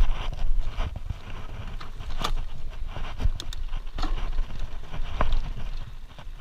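Mountain bike riding over a rocky dirt trail: tyres rolling with a steady low rumble, and irregular clacks and rattles as the bike bounces over rocks and roots.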